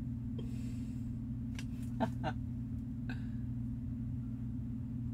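A few light clicks and taps from a hard plastic graded-card slab being handled, the loudest about two seconds in, over a steady low electrical hum.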